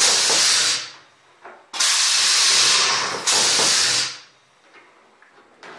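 Pneumatic dimpling machine cycling on an aluminium wing skin, compressed air hissing in loud bursts each a second or two long. One burst ends about a second in, then two more follow back to back.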